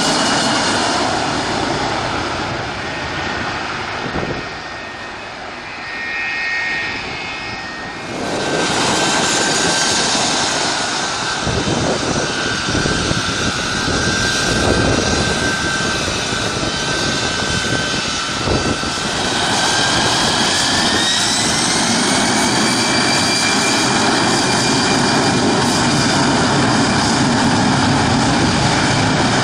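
Airplane engines running loudly as a steady roar with whining tones. The sound gets suddenly louder about eight seconds in, and a whine rises in pitch about twenty seconds in.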